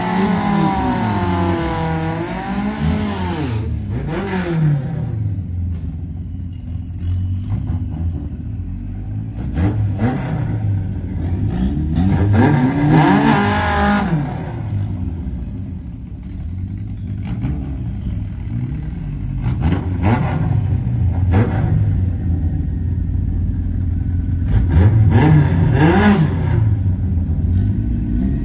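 Four-cylinder engines of two Toyota pickups, one all-motor and one turbocharged, idling and revving at the drag strip's starting line. The pitch repeatedly climbs and falls in blips, strongest a few seconds in, around 13 seconds in, and again near 20 and 26 seconds in, with sharp pops scattered between.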